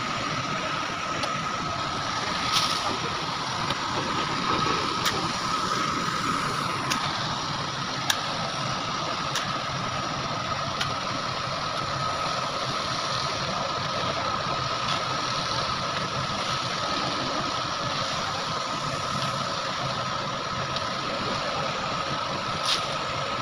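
Machinery running steadily at the site: a motor drone with a constant high whine and faint ticks every second or so.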